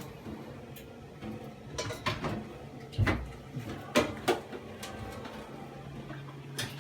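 Several sharp knocks and clinks of hard objects being handled, clustered in the middle seconds, over a steady low hum.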